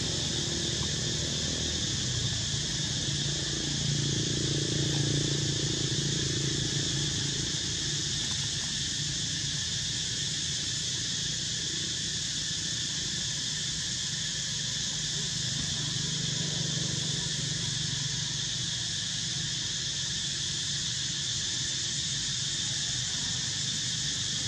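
Steady drone of insects chirring in several high, unbroken bands, over a low background rumble.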